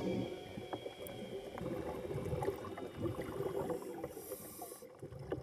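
Underwater ambience: a scuba diver's exhaled bubbles gurgling, with scattered short clicks and crackles.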